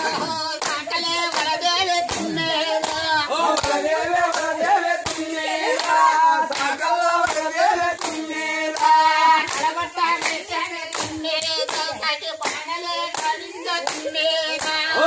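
A group of people clapping their hands in a steady rhythm, about two claps a second, as they dance in a circle, with voices singing along.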